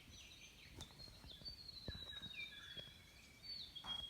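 Faint birdsong: a bird gives long, high whistles that slowly fall in pitch, one lasting over a second and another near the end, with a few shorter chirps among them and a few soft clicks.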